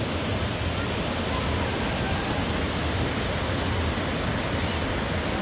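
Steady rush of flowing mountain water, an even, unbroken hiss of a stream or cascade tumbling over rocks.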